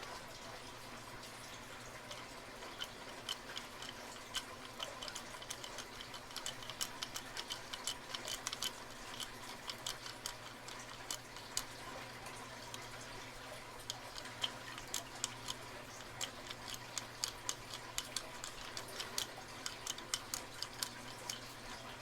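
Faint, irregular small metallic clicks of a tubular lock pick being worked and turned in a tubular lock, several a second, with a brief lull about halfway through.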